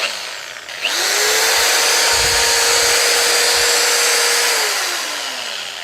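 Corded 13 mm electric drill running with no load: the trigger is pulled and the motor spins up within a moment to a steady whine, runs at full speed for about three and a half seconds, then is released and winds down with a falling pitch.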